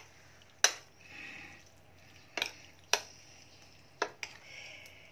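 Metal spoon clinking against a ceramic bowl about five times while tossing soft, seasoned eggplant pieces, with soft wet stirring sounds between the clinks.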